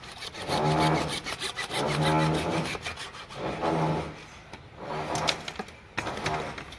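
A white PVC pipe being sawn through by hand, with slow back-and-forth strokes about one every second and a half, each giving a pitched rasping note. A few sharp knocks come near the end as the pipe is handled.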